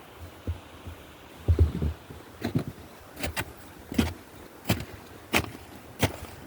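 Footsteps of a person walking on a trail: a few dull thuds, then from about two seconds in a steady run of sharp footfalls at about one and a half steps a second.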